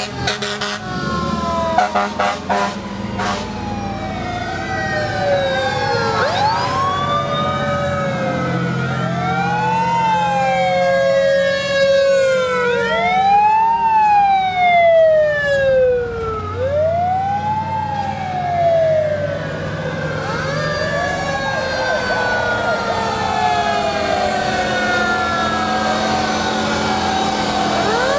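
Several fire truck sirens wailing at once, each rising and falling in pitch over a few seconds and overlapping the others, over the low steady running of the trucks' engines as they pass.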